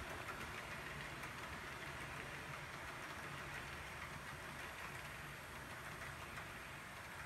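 HO scale model coal train rolling along its track: a faint steady whir of the wheels on the rails and the locomotives' drive, with occasional light clicks.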